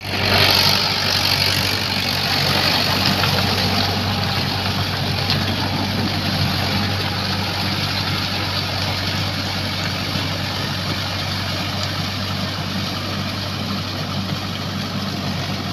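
Swaraj 843 XM tractor's three-cylinder diesel engine running steadily while the tractor pulls a rotary tiller through wet paddy mud, growing a little fainter as it moves away.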